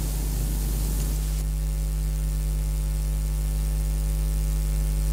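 Steady electrical mains hum with a buzz of evenly spaced overtones over a hiss. About a second and a half in, the hiss drops and the buzz stands out more clearly.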